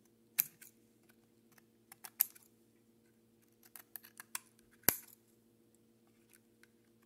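Small scissors snipping off the overhanging ends of shingle strips on a model barn roof: a handful of short, sharp clicks at uneven intervals, the loudest about five seconds in, over a faint steady hum.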